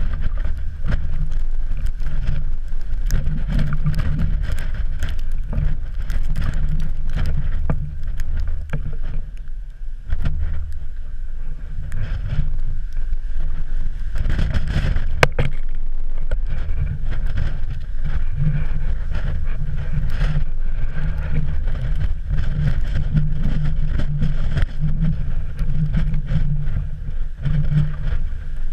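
Wind buffeting a GoPro's microphone: a loud low rumble that swells and eases with the gusts, easing briefly about a third of the way in and again about halfway. Scattered clicks and knocks sound over it.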